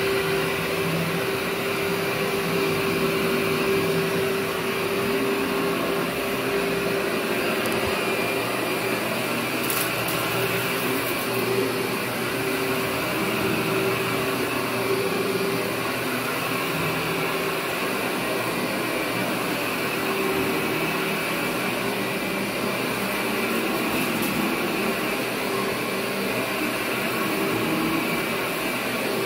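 Workhorse upright vacuum cleaner running steadily as it is pushed back and forth over carpet, a continuous motor and suction noise with a steady hum.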